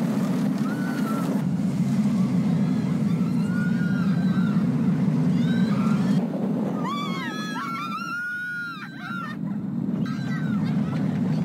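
Amusement-park ride running with a steady low rumble while many riders scream in short rising-and-falling cries, thickest about seven to nine seconds in.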